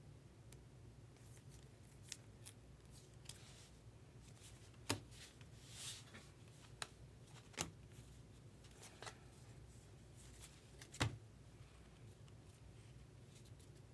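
Faint clicks, taps and rustles of trading cards and rigid plastic toploaders being handled and flipped through, with a handful of sharper clicks, the loudest about eleven seconds in, and a soft swish about six seconds in.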